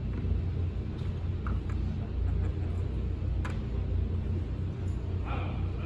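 Steady low rumble of room noise in a large hall, with a few faint clicks and a brief murmur of voices near the end.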